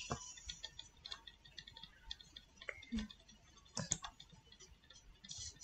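Faint, scattered clicks of a computer mouse and keyboard as a file is saved, a handful of separate clicks a second or so apart.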